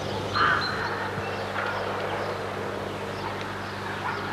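A crow cawing, the clearest call about half a second in with fainter calls later, over a steady low hum and hiss.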